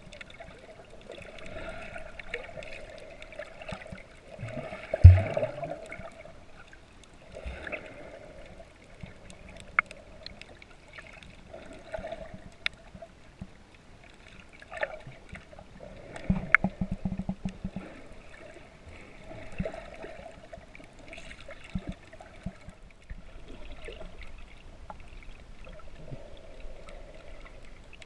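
Water heard underwater through a camera's waterproof housing: muffled sloshing and bubbling that swells and fades as swimmers stroke past, with scattered clicks. A loud low thump comes about five seconds in, and a crackling spell around sixteen seconds.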